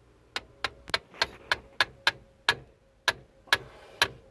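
Hammer tapping a driver into a stripped axle bolt head: about a dozen sharp, light metal taps, roughly three a second, with a brief pause midway, to seat the tool in the damaged bolt.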